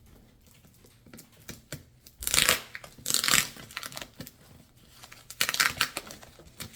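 Cardboard packaging being torn open: three loud tearing sounds about two, three and five and a half seconds in, with light crinkling and rustling between.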